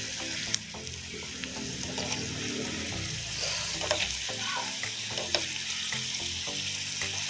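Onion, garlic and ajwain sizzling steadily in hot mustard oil in a pan, with now and then the click of a spoon as it is stirred.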